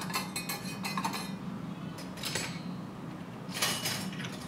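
Small stainless steel toy pots, lids and dishes clinking against each other as they are picked up and set down, in quick clusters of light metallic clinks: one at the start, one around the middle and one near the end.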